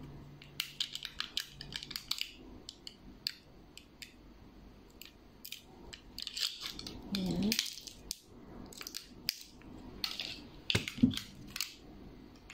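A butter wrapper crinkling and rustling as it is peeled off a block of butter by hand, in irregular short crackles.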